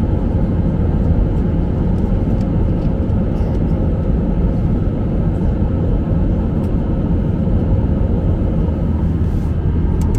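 Jet airliner cabin noise in flight: a steady low rumble of engines and airflow, with a faint constant hum.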